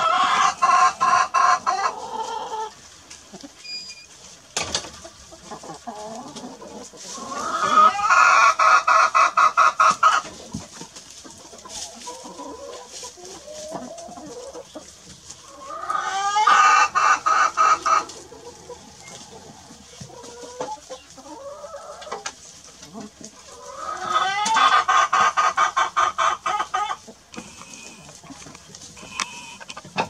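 Rooster crowing four times, about every eight seconds, each crow a loud call of two to three seconds with a rapid flutter. Hens cluck softly in between.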